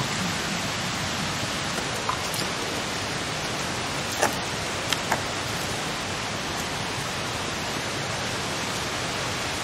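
Steady rushing hiss with a few short sharp clicks, one about two seconds in, a louder one about four seconds in and two close together just after five seconds.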